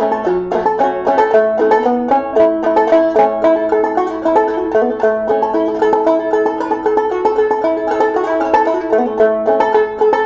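A 10-inch H.C. Dobson antique open-back banjo with a double-spun metal pot and a solid maple bridge, played as a quick run of picked notes in a continuous tune.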